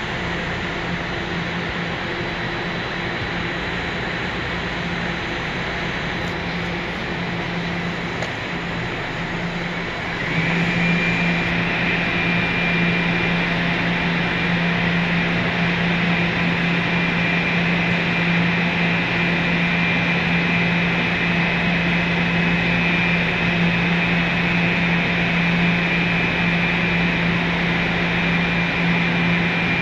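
Steady low hum and hiss of subway machinery, with a constant high whine joining and the sound getting louder about ten seconds in.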